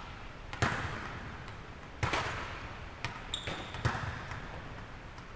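Volleyballs being struck and bouncing on a hardwood gym floor: about five sharp slaps, each ringing on in the echo of a large hall. A brief high squeak comes a little past the middle.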